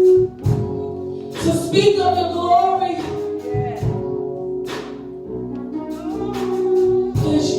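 Worship music with a singing voice over sustained instrumental chords.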